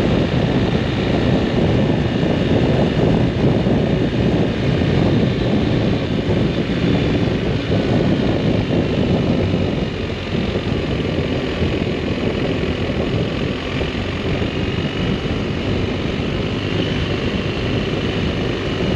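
Heavy wind noise buffeting a jacket-mounted action camera on a moving motorcycle, with the BMW R1250RS's boxer-twin engine running steadily underneath.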